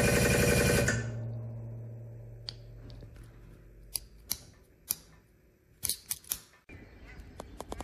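Hydraulic press pump motor running, cutting off about a second in and humming down as it stops. Then a series of sharp metal clicks, single and in a quick cluster, as the press's hand control valve lever is worked.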